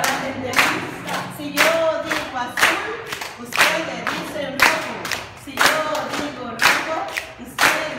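A group of people singing a recreational camp song together, clapping along about once a second.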